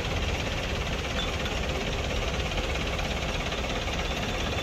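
Steady low rumble of an engine running, with no distinct knocks or strikes.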